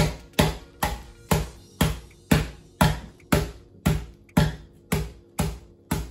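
Wooden rolling pin bashing chocolate digestive biscuits in a plastic bag on a worktop: a steady run of thuds, about two a second, crushing the biscuits to crumbs.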